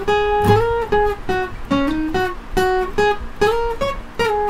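Steel-string acoustic guitar, tuned down a half step, playing a slow single-note lead line. Each note is plucked in turn, and some are joined by slides and a pull-off.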